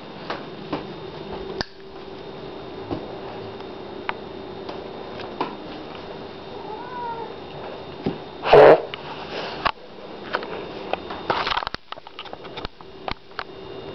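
Domestic cat meowing: a faint short call about seven seconds in and a loud one about eight and a half seconds in. Underneath are a steady low hum and scattered small knocks.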